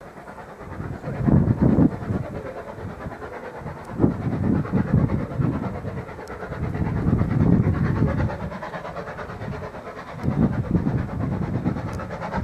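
Ex-GWR 1500 class pannier tank locomotive No. 1501 working hard uphill with a train of coaches: the steam exhaust chuffs, swelling and easing in several surges.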